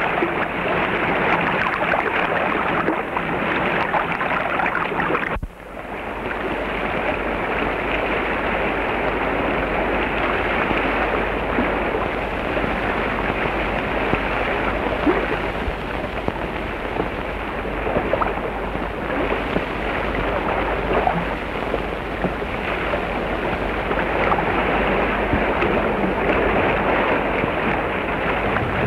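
River water rushing and splashing around the men held underwater in a Dayak trial by water. The sound drops out sharply for a moment about five seconds in, then carries on.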